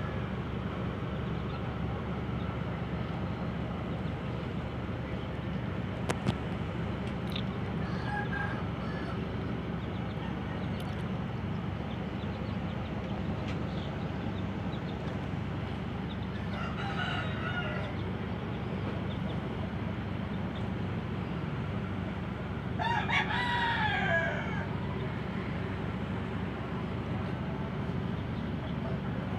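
Steady low drone of a ship's engines. A short pitched call sounds about seventeen seconds in, and a louder, arching crow-like call about twenty-three seconds in.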